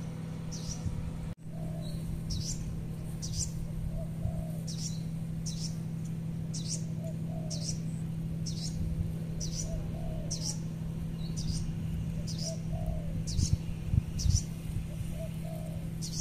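Birds calling: a short high chirp repeated about once a second, with lower paired calls every few seconds, over a steady low hum.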